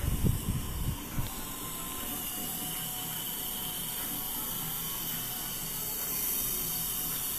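Steady hiss and rush of a dental suction aspirator drawing air and fluid at the patient's mouth during implant surgery. A few low thumps fall in the first second.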